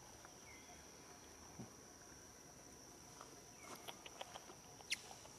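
Faint, steady, high-pitched insect drone from the forest undergrowth, with a few soft clicks and one brief falling chirp about five seconds in.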